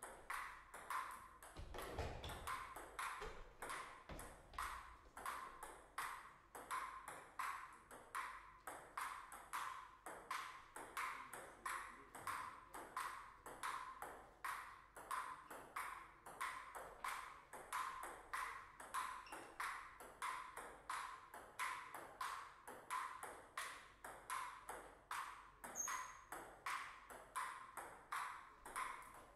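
Table tennis ball clicking back and forth off the bats and the table in one long rally, about two to three hits a second.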